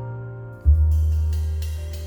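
Background music: sustained piano chords over a deep bass note, with a soft drum hit and cymbal about two-thirds of a second in.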